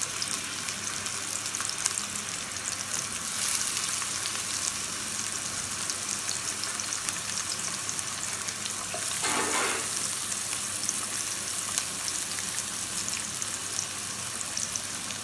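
Thin slices of frozen minced-meat shawarma sizzling in a little hot oil in a pan: a steady crackling hiss that swells briefly about nine seconds in.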